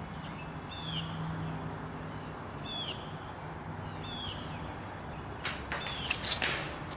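A small bird repeating a short, high, downward-slurred chirp every second or two over a low steady hum. A few sharp clicks and knocks come about five and a half seconds in.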